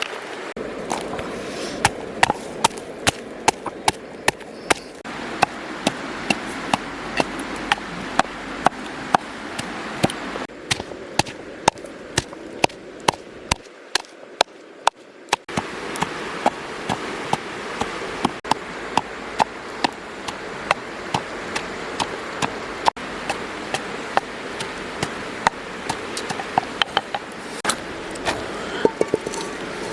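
Knife chopping on a cutting board in a steady rhythm of sharp knocks, about two a second, over a steady background hiss.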